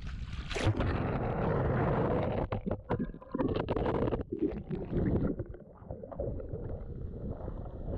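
Water splashing and rushing over an action camera as a kitesurfer water-starts, with the camera briefly dunked and sounding muffled and gurgly in the middle. It then settles into a steady low rumble of wind on the microphone and the board skimming the water.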